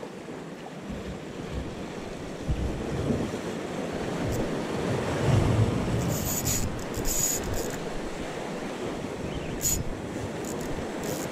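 Sea waves washing and breaking against concrete breakwater blocks, with wind buffeting the microphone. From about six seconds in, a few short, high hissing scrapes come and go over it.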